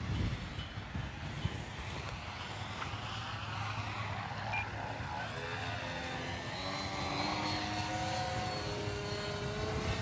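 Electric motor and propeller of an E-flite Turbo Timber RC plane flying, a whine that shifts in pitch and grows clearer about halfway through, over a low rumble of wind on the microphone.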